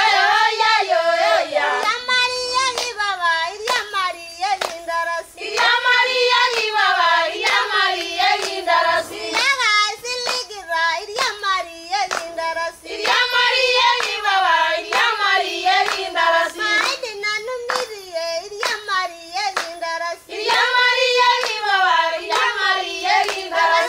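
Maasai women singing together in high voices, with a steady beat of hand claps about two to three times a second.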